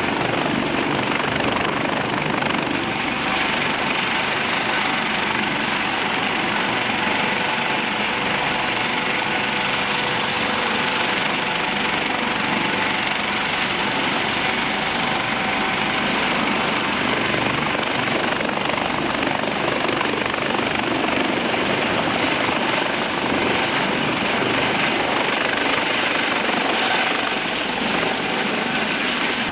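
Helicopter's turbine engines and main rotor running close by as it sets down on and lifts off a ship's flight deck. The sound is a loud, steady noise with a thin high turbine whine on top.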